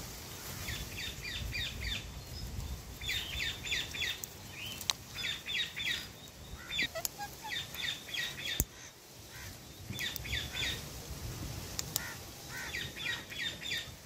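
Parakeets chirping in quick runs of four or five short notes, repeated every second or two, with a few sharp clicks in between.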